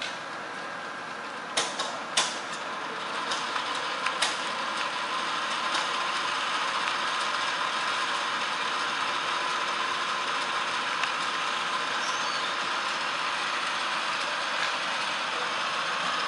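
Rebuilt 1981 Hardinge HLVH toolroom lathe running with a steady mechanical whir. A few sharp clicks come about two seconds in, then the running sound grows louder and holds steady.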